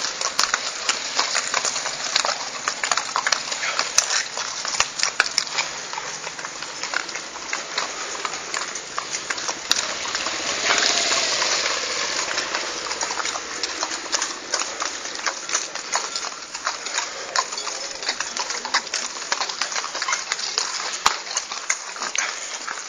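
Hooves of a group of ridden mules and horses clip-clopping on a wet paved street, many hoofbeats overlapping.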